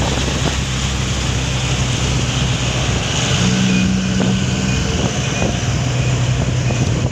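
Truck engine running with a steady low hum as a truck drives by, over a constant wash of road noise.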